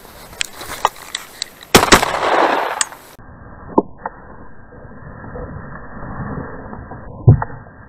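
Hunting shotgun fired twice in quick succession, the report ringing out for about a second. After a cut, another shot sounds duller near the end.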